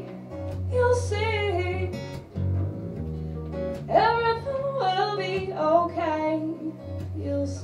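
Live acoustic song: a woman singing over a strummed acoustic guitar, with an upright double bass holding low notes underneath; her sung phrases come about a second in and again from about four seconds.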